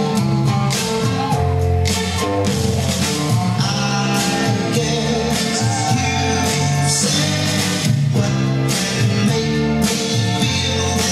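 A Motown song playing: a lead singer over a band with a walking bass line and a steady drum beat.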